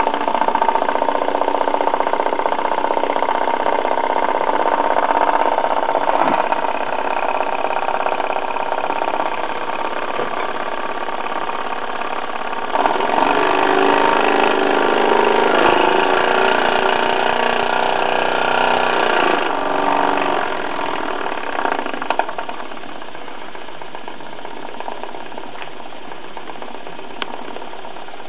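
Small Stuart ST1 oscillating steam engine running steadily on steam. It gets louder for several seconds around the middle, then settles quieter near the end.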